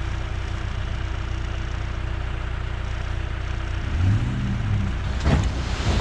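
Tractor loader backhoe engine running steadily, its pitch rising briefly about four seconds in, with two sharp knocks near the end.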